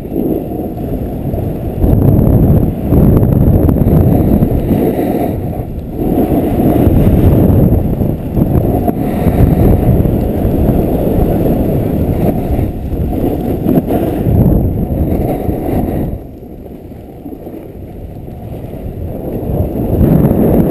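Wind buffeting an action camera's microphone while riding downhill on snow: a loud, muffled rumble that swells and fades, easing off for a few seconds about two-thirds of the way through before building again.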